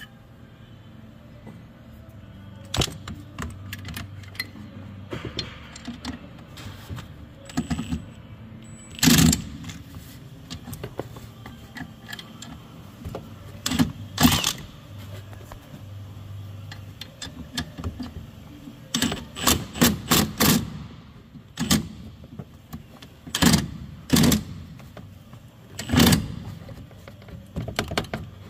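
Metal tools clinking and knocking on metal at irregular intervals, some in quick pairs and short runs, as a socket extension works on the condenser fan motor mount; a low steady hum sits underneath.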